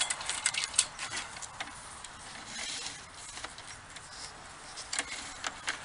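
Rubbing and scattered sharp clicks as a sewer inspection camera's push cable is worked by hand into a cleanout, trying to push the camera head past a break in the pipe. The clicks come in a quick cluster at first, then thin out, with a few more about five seconds in.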